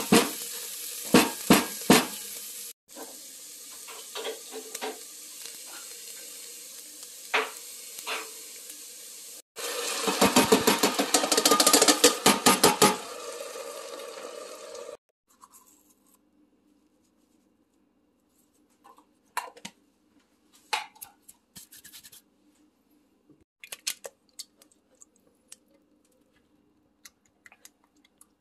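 Diced onions and garlic sizzling in oil in a metal pot, with the clicks and scrapes of a spatula stirring them. A louder stretch of sizzling with rapid scraping strokes begins about a third of the way in and stops suddenly. For the rest there is only faint stirring of thick tomato sauce, with a few light scrapes.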